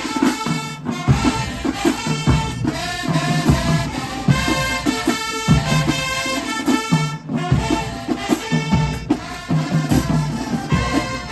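HBCU-style marching band playing loudly: brass carrying the tune over heavy, regular bass-drum and percussion hits.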